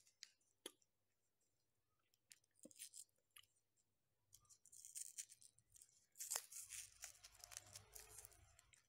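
Faint crinkling and tearing of an ice-cream cone's paper wrapper being peeled off by hand, in short bursts with a few small clicks, the longest stretch near the end.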